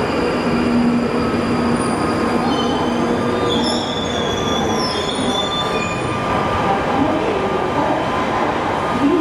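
London Underground Northern Line 1995 Stock train running into the platform and slowing over a steady, loud rumble. High-pitched squealing starts about two and a half seconds in and fades out around six seconds.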